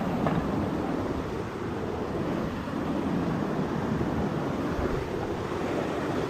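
Steady rushing noise of flowing river water, with wind buffeting the microphone.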